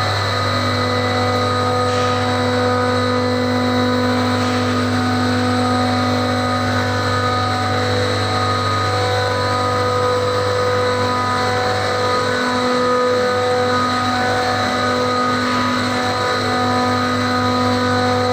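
HVAC chiller plant machinery running: a loud, steady mechanical hum made of a low drone and several constant higher whines.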